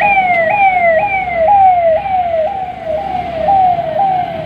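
Vehicle siren wailing in a fast repeating pattern: the tone jumps up and slides down again about twice a second.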